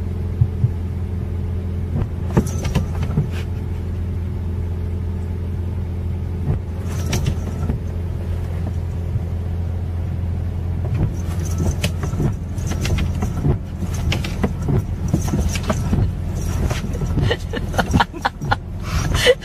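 Car running, heard from inside the cabin: a steady low drone of engine and road noise, with scattered clicks and knocks that come more often in the second half.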